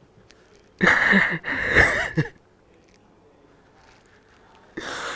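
A man crying into a tissue: two loud sobbing breaths about a second in, and a shorter one near the end.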